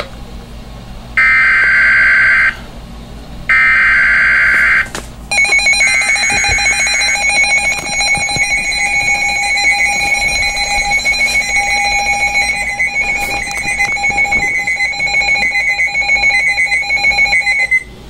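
Midland weather alert radio giving two harsh, screeching bursts of SAME digital alert data, each just over a second long. From about five seconds in, the radio's alert alarm beeps rapidly and steadily, the sign that it has picked up a severe thunderstorm warning.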